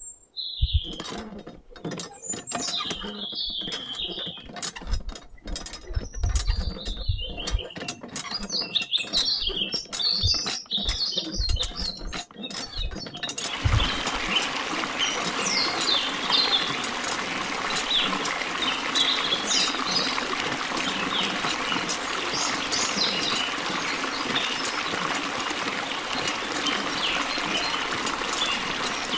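Miniature toy hand pump being worked, with a run of irregular mechanical clicks and knocks. About halfway through, a steady stream of water starts splashing from its spout into a small model pond and keeps running. Small bird chirps sound throughout.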